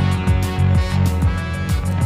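Background music with a steady beat: a kick drum about twice a second, hi-hats and guitar.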